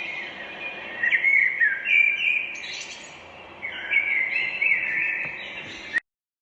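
Birds chirping and singing in quick, varied calls, with a short lull partway through; the sound cuts off abruptly near the end.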